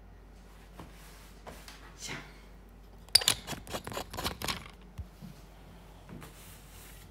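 Handling noise from a phone being grabbed and moved: a quick flurry of knocks, clicks and rubbing against the phone body and microphone for about a second and a half, starting about three seconds in, with a few lighter touches before and after.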